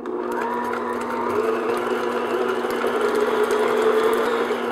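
Electric stand mixer starting up and running steadily on its motor with a constant hum, its paddle beating a cup of room-temperature butter until creamy.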